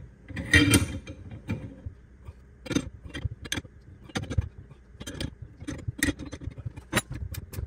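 Ratcheting box-end wrench clicking as it is swung back and forth, tightening the nuts of a bearing puller clamped in a bench vise. A metallic clank about half a second in, then separate clicks at uneven spacing, turning into a fast even run of clicks near the end.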